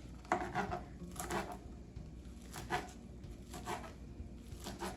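Fresh kale leaves being broken into smaller pieces: short, crisp, crackly strokes, about one a second, five in all.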